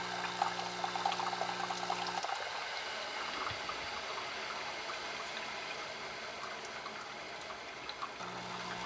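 Bunn My Cafe single-cup coffee maker brewing in pulsed mode: the pump's electric hum cuts off about two seconds in and starts again near the end, pushing water through in pulses. Water gurgles and trickles through the brewer underneath.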